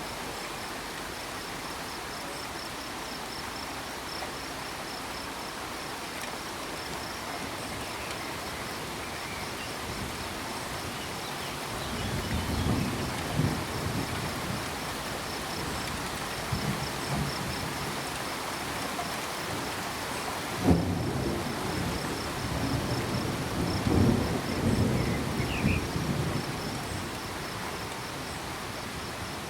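Steady rain with crickets chirping in a fast, even high trill, and low rolling thunder starting about twelve seconds in, with a sharp thunder crack about two-thirds of the way through.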